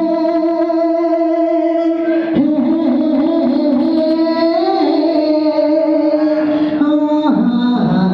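A man singing unaccompanied, holding long drawn-out vowel notes that slide from one pitch to the next: the wordless opening of a Bollywood film song, sung in imitation of a playback singer's voice.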